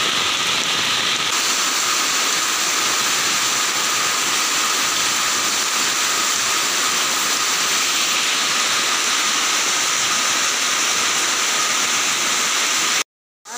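A heavy downpour: a loud, steady hiss of rain falling on flooded ground and leaves. It breaks off for a moment near the end.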